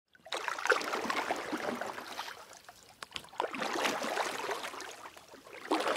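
Water splashing and swishing in three surges.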